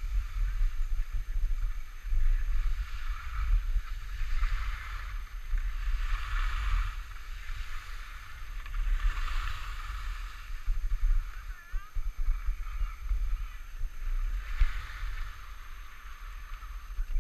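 Wind buffeting a camera microphone during a downhill ski run, a steady low rumble, with the scrape of skis on snow swelling and fading every few seconds.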